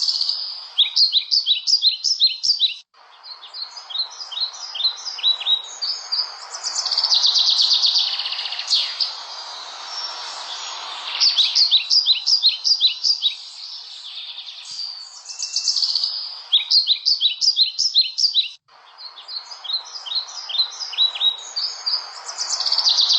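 Small songbirds chirping: repeated quick runs of high, sharp notes, one run every few seconds, over a steady background hiss. The sound cuts out abruptly twice, about three seconds in and near the end.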